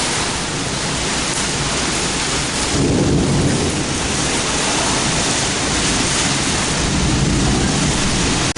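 Heavy rain pouring down in a severe thunderstorm, a dense steady rush, with a deeper rumble swelling about three seconds in.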